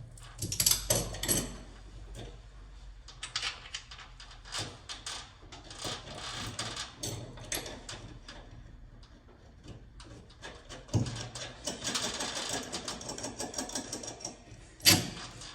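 Small metal hardware clicking and clinking as washers and nuts are handled and run onto threaded hanger rod, with a denser rattling stretch late on and one sharp knock near the end.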